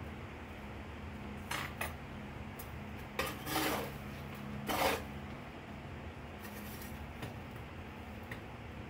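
A coal forge's electric blower runs with a steady hum while a metal tool scrapes and clinks through the coal in the fire. The scraping comes in short bursts about one and a half, three and a half and five seconds in.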